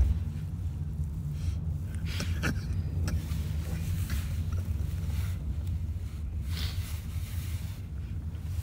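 Steady low rumble of a car's engine and road noise heard inside the cabin, with a few brief rustles of clothing close to the phone's microphone.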